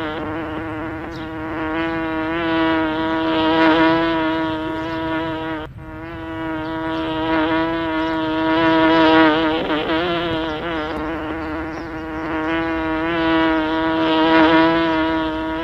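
Bee buzzing in a steady, pitched hum that swells and fades, with a brief break about six seconds in.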